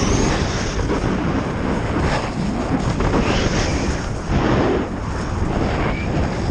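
Snowboard sliding and carving on packed snow with wind buffeting the action camera's microphone: a constant low rush, with louder hissing scrapes as the board's edges bite into turns, a few times.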